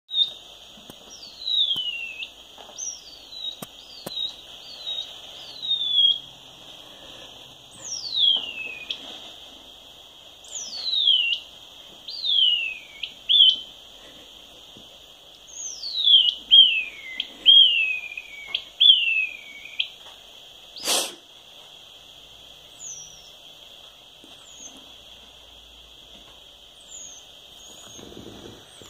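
A pet rat's ultrasonic distress calls heard through a Magenta Bat4 heterodyne bat detector tuned to about 20 kHz: a string of short falling whistles in clusters over the detector's steady hiss. A 20 kHz call like this usually indicates distress, here a rat being bullied by a cagemate. A sharp click comes about two-thirds of the way through, and the last few whistles are fainter.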